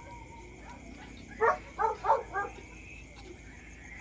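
A dog barking four times in quick succession about halfway through, over a steady high-pitched drone in the background.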